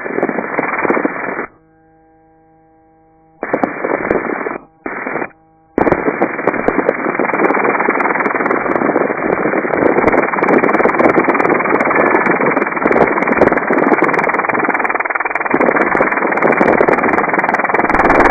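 Helicopter cabin noise heard through the headset intercom, band-limited and dull. It cuts in and out in short bursts at first as the voice-activated mic gates, then stays open as a steady rush from about six seconds in.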